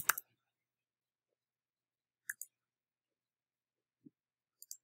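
Isolated computer mouse clicks: a quick pair about two seconds in, a soft tap about four seconds in, and another pair near the end.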